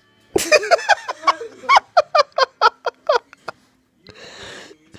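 A child giggling in a quick run of short, high-pitched bursts for about three seconds, then a short breathy sound near the end.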